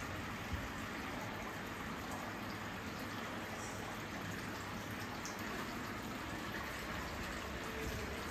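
Steady sound of falling water, even and unbroken.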